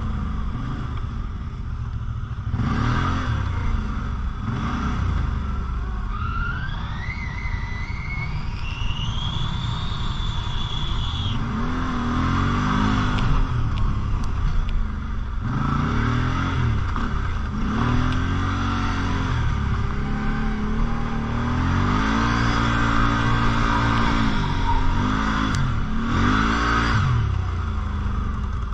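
Quad bike (ATV) engine being ridden off-road, its revs rising and falling again and again over a heavy low rumble. A thin whine climbs steadily in pitch for several seconds early on.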